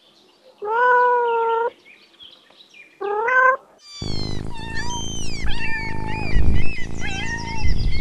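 Domestic cat meowing twice: a long, level meow, then a shorter rising-and-falling one. About four seconds in the sound changes to a continuous stretch of high, gliding kitten mews over a steady background.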